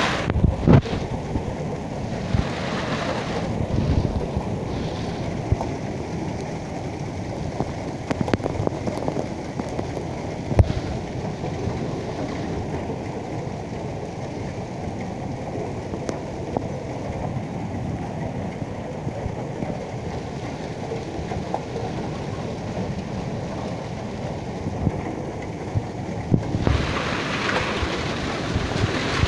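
Hailstorm: hailstones pelting the paved lane and walls in a dense, steady patter, with sharp clicks from single stones. The patter grows harsher and brighter near the end.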